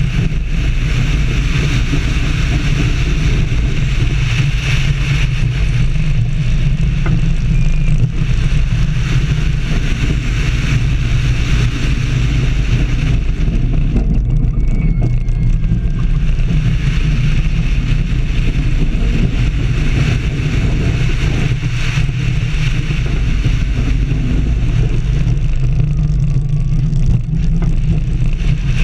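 Wind rushing over the microphone, with the train of Shambhala, a Bolliger & Mabillard hyper coaster, running at speed along its steel track. The rush thins briefly near the middle as the train crests a hill, then builds again on the next drop.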